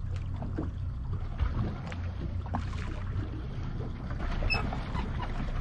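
Low steady rumble of a boat drifting at sea, with light water and wind noise and a few faint scattered ticks and knocks.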